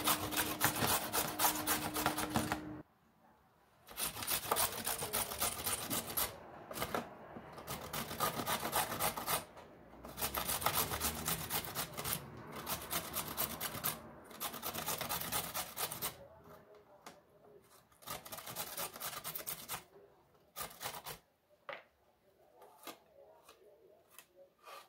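Carrot being grated on a stainless-steel box grater: runs of fast rasping strokes, each two to three seconds long with short pauses between them, growing fainter in the last third, with a few light taps near the end.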